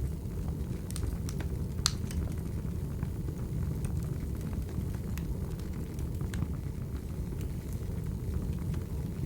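Wood fire crackling: a steady low rumble of burning with scattered sharp pops and snaps, the loudest a little under two seconds in.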